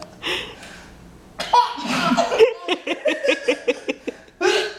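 Baby laughing: a fast run of high-pitched 'ha-ha' pulses in the second half, with shorter vocal bursts near the start and near the end.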